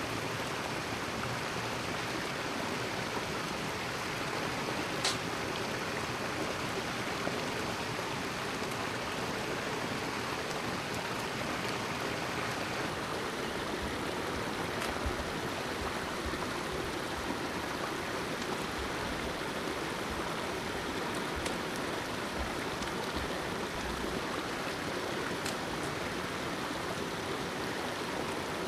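Steady rush of running water, with a few faint sharp clicks over it, the clearest about five seconds in.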